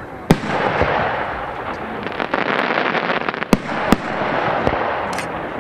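Aerial firework shells bursting: a sharp bang just after the start, then two more close together about three and a half seconds in, over a continuous hiss from the display.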